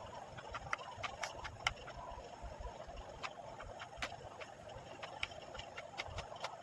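Kitchen knife slicing a peeled banana on a cutting board: a string of sharp, irregular taps as the blade comes down on the board, over a steady background hum.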